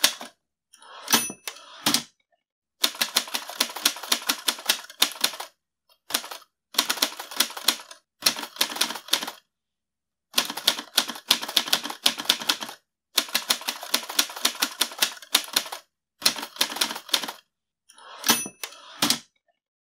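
Old typewriter being typed on in bursts of rapid keystrokes separated by short pauses. Twice, about a second in and near the end, a brief bell-like ring sounds, followed by heavier clunks.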